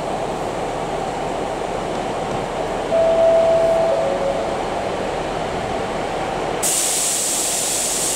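Class 150 Sprinter diesel multiple unit's underfloor Cummins diesel engines running steadily as the two-car train departs. About three seconds in comes a brief two-note tone, high then lower, and near the end a steady hiss starts abruptly.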